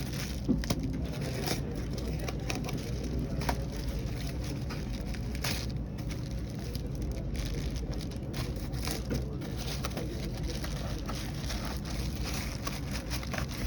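Packaging crinkling and crackling in scattered bursts as a bottle is unpacked by hand, over a steady low rumble.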